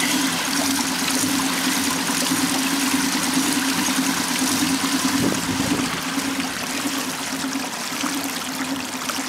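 Water rushing and splashing along the hull of a pedal-powered catamaran under way. A steady low hum runs underneath throughout.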